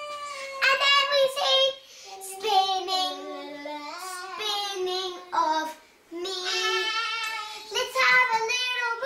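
A young girl singing a tune in a high voice without clear words, with long held notes that slide up and down and a short break about six seconds in.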